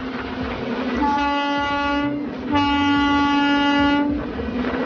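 Horn of a road-rail trial truck running on new track, sounding two steady blasts: the first about a second long, the second about a second and a half. A low rumble continues underneath.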